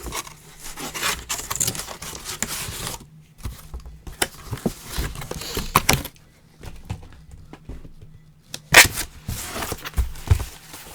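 A record album's packaging being handled: rustling of sleeve and wrapping, then scattered clicks and knocks, the loudest about nine seconds in.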